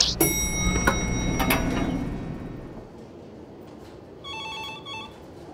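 A desk telephone's electronic ring, one short trilling ring about four seconds in. Before it, a low rumble with a few high steady tones fades out over the first three seconds.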